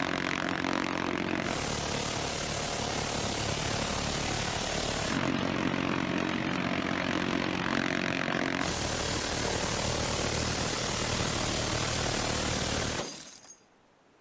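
Minigun firing two long continuous bursts, each about three and a half to four seconds, so fast the shots merge into one roar. Between and before them is the steady drone of an aircraft's engines. The sound cuts off suddenly near the end.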